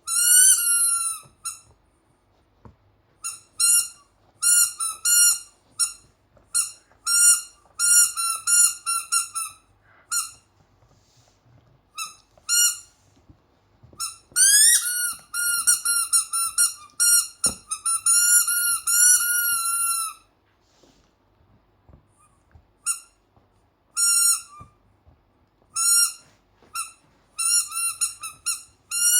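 Squeaky Christmas-tree toy being squeezed over and over, giving runs of short, high squeaks with brief pauses between them. One longer squeak rises in pitch about halfway through.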